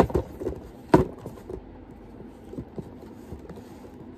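A pair of Supreme x Nike Dunk Low sneakers set down on a cardboard shoebox: two sharp knocks about a second apart, then a few faint taps as they are shifted into place.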